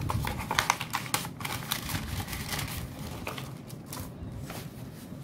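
Paper envelope and banknotes being handled: rustling and crinkling paper with a quick run of crisp clicks and flicks, busiest in the first couple of seconds.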